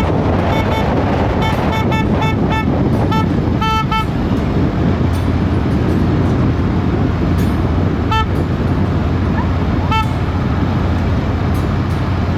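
Vehicle horn tooting: a quick run of short beeps in the first four seconds, then single toots about eight and ten seconds in, over a loud steady rumble of traffic and wind noise.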